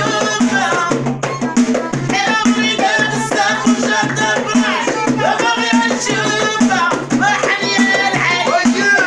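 Moroccan houariyat folk song: a woman's voice sings the lead over frame drums and hand percussion keeping a steady, driving beat, with a rattle of jingles.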